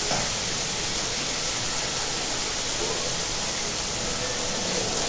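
Large heap of shredded cabbage sizzling on a hot teppanyaki griddle: a steady hiss.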